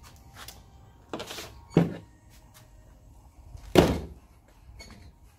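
A few knocks and thunks of tools being handled on a hollow plastic waste tank as a cordless drill with a hole saw is picked up: a short scrape about a second in, a sharp knock shortly after, and the loudest thunk near four seconds in.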